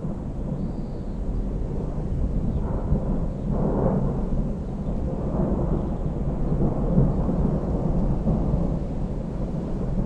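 Thunder rumbling in a long, low, continuous roll that swells about three to four seconds in and again a few seconds later.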